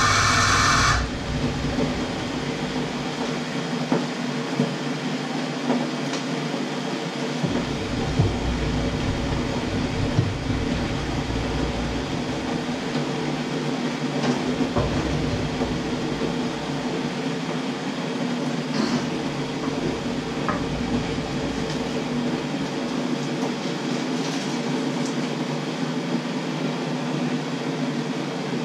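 A loud hiss cuts off about a second in, leaving a steady mechanical hum with a low rumble. A few faint clicks and knocks come from handling things in the kitchen.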